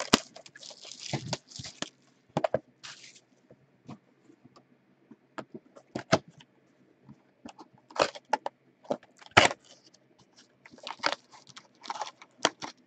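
A cardboard trading-card box being opened and the foil-wrapped card packs inside handled: irregular crinkles, scrapes and taps, with louder ones about eight and nine and a half seconds in.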